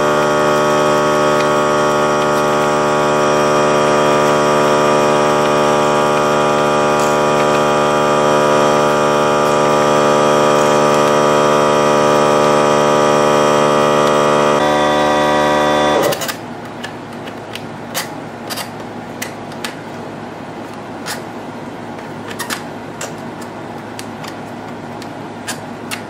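Air compressor motor running with a steady, loud drone, then shutting off abruptly about sixteen seconds in. A lower background hum follows, with scattered light clicks and taps.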